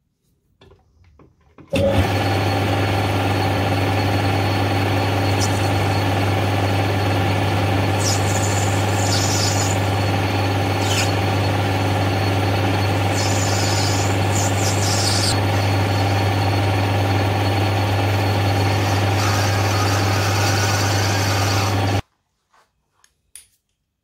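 Metal lathe running steadily while turning brass round bar, a steady low motor hum with a mechanical whirr over it. It starts suddenly about two seconds in and cuts off suddenly near the end, with two short spells of higher hiss in the middle.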